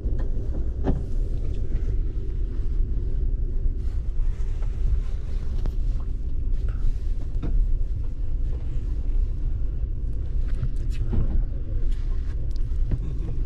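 Steady low rumble of a moving sleeper train, heard from inside the carriage, with a few faint knocks.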